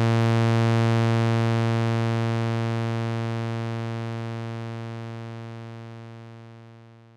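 Behringer Model D analog monosynth sounding one low, buzzy note that fades away slowly and evenly over about seven seconds, dying out near the end. The amp envelope is set to a long decay and release.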